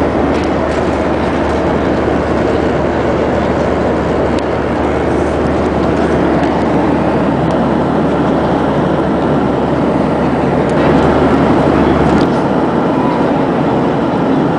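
Steady rushing drone of a Boeing 737-700's cabin in cruise: engine and airflow noise. It swells slightly for a moment near the end.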